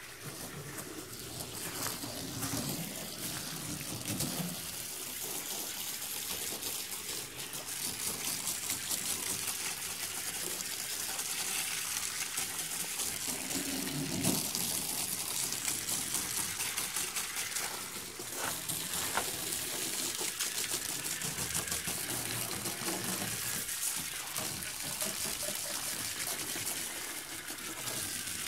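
Garden hose spraying water onto a car's painted bonnet and side panels, a steady hiss with water splashing and running off the paint.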